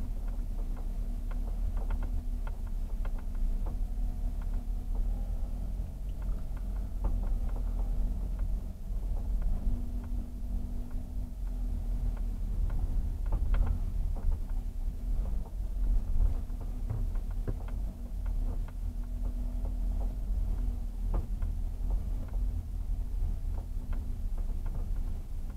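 Car interior sound picked up by a dashcam's built-in microphone while driving slowly: a steady low engine and road rumble with a constant hum, and frequent small clicks and rattles.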